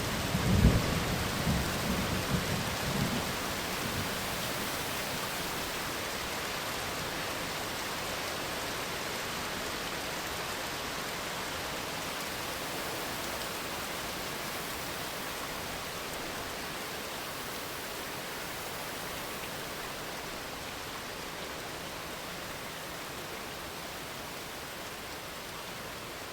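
Thunderstorm: a last rumble of thunder with a sharp crack about half a second in, dying away within the first three seconds, over steady rain that slowly grows quieter.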